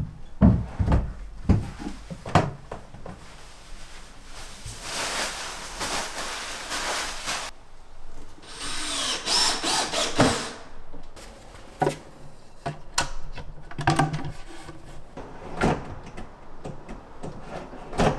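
Wooden shelving knocking as it is handled, then a power drill running in two stretches of a few seconds each. Scattered knocks and clicks follow.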